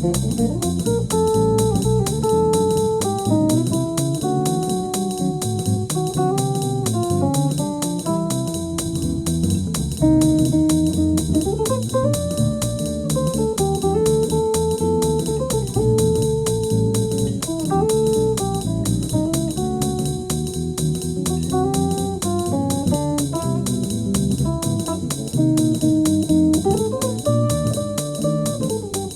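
Instrumental music: a melody of held notes stepping up and down over a lower bass line.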